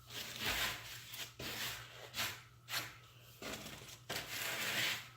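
A series of soft rustling, rubbing noises, about half a dozen short swishes one after another.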